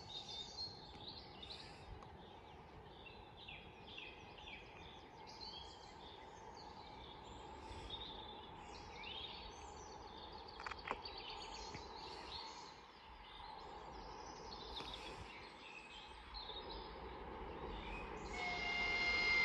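Songbirds chirping and singing over a faint steady background hum. Near the end, an approaching EP1M electric locomotive sounds its horn: one steady high-pitched tone that is the loudest thing heard.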